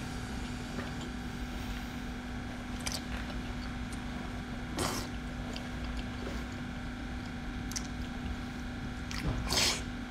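Wet sucking and chewing of chili-coated octopus tentacles: a few short slurps, the loudest about five seconds in and a longer one near the end, over a steady low hum.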